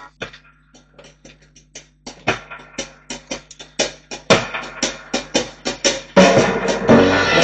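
Music with drums: a run of sharp drum hits that grows busier and louder, with the full band coming in about six seconds in.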